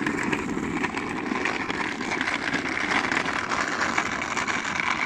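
Small hard wheels of a child's ride-on flicker swing car rolling over rough asphalt: a steady gritty rumble.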